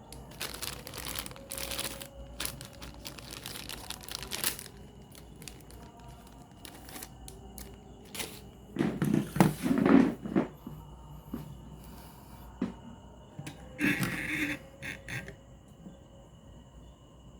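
Irregular rustling, scraping and knocking of hands and tools handling things, in several groups with the loudest near the middle, over a faint steady high-pitched whine.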